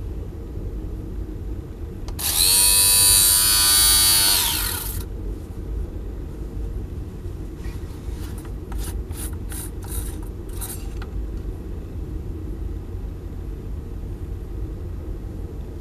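Xiaomi Mijia lint remover's small electric motor and cutter head switched on, running with a high whine for under three seconds and winding down. Then a run of short plastic clicks and rasps as the mesh cutter-head cover is twisted off.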